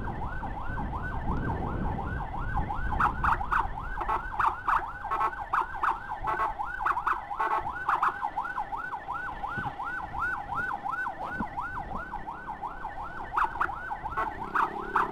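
Electronic siren of a motorcycle escort in fast yelp mode, with about five rising-and-falling sweeps a second, over the bike's engine and road noise.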